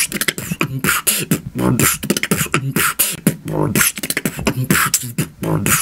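Beatboxing: a quick, unbroken rhythm of mouth-made kick, snare and hi-hat sounds mixed with short hummed, pitched vocal tones.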